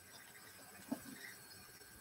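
Quiet room tone with one faint, soft tap about a second in.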